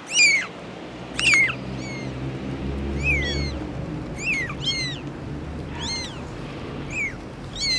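Kittens mewing: short, high-pitched squeaky mews, each rising and falling in pitch, about one or two a second. A faint low hum sits underneath in the first half.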